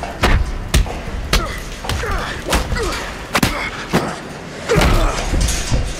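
Fistfight sound effects: a string of punch impacts, roughly one every half second, with short grunts between the blows.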